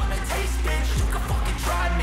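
Background music: a hip-hop beat with deep bass notes that slide downward in pitch.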